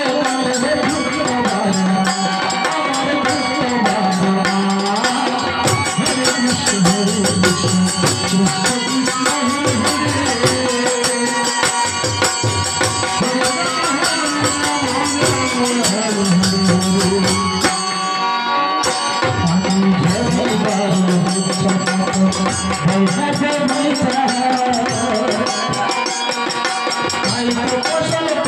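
Devotional Bengali nam kirtan: voices singing to harmonium and khol drum accompaniment.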